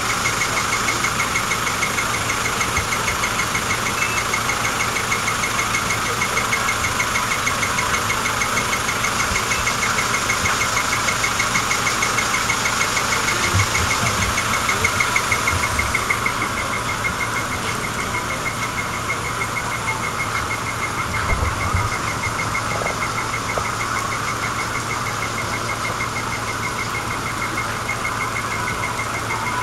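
Diesel truck engine idling steadily with a fast, even clatter.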